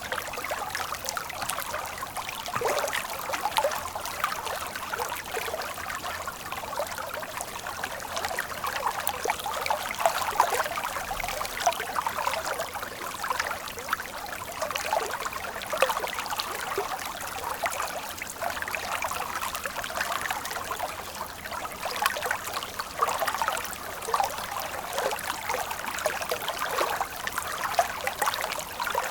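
Water flowing steadily in a small stream, a continuous light trickling and splashing without a deep roar.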